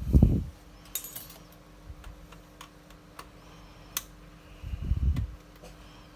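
Small tools and parts clicking and tapping while a camera is being taken apart on a workbench, with two low thumps, one at the start and one about five seconds in.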